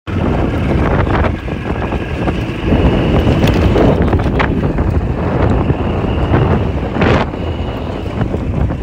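Wind rushing over the microphone of a moving Hero Honda motorcycle, with the bike's engine running underneath.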